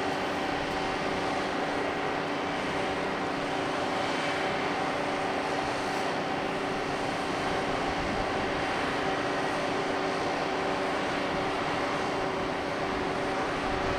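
Steady machinery drone from a cruise ship, several held hum tones over an even rushing noise, unchanging throughout.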